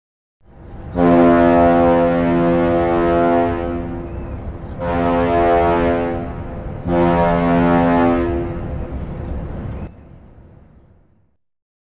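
A ship's horn sounds three blasts: a long first blast of about four seconds, then two shorter ones, each a low steady tone, with an echo fading away after the last.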